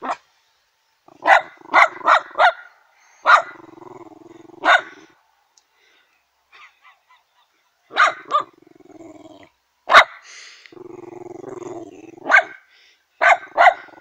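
A terrier barking in short volleys, about a dozen sharp barks in all, with low growling in the pauses between them.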